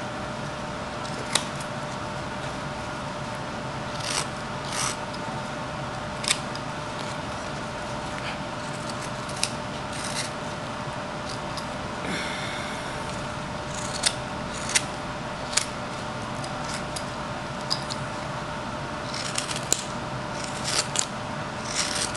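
A whittling knife cuts shavings from a small wooden carving, making short, sharp snicking cuts at irregular intervals, with one longer scraping stroke about halfway through. A steady hum runs underneath.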